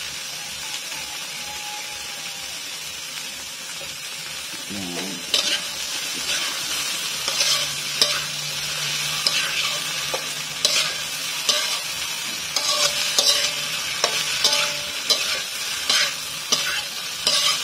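Tofu sisig frying in a pan, sizzling steadily with the oyster sauce and soy sauce just added. From about five seconds in, a utensil scrapes and knocks against the pan again and again as the mixture is stirred.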